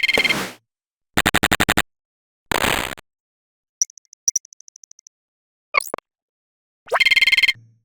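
Electronic glitch sound effects: a string of short, separate digital bursts with dead silence between them. A rapid stuttering buzz, a brief burst of noise, a high chopped beeping, a quick sweep and a final stuttering buzz.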